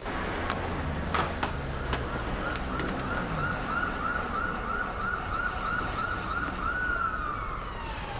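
Ambulance siren on a fast yelp, about three rises a second, changing near the end to a slow wail that glides down and starts to rise again, over a steady low rumble. A few sharp knocks sound in the first two seconds.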